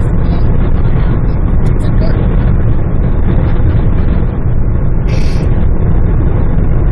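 Steady road and wind noise inside a moving car's cabin at highway speed, a loud low rumble, with a brief hiss about five seconds in.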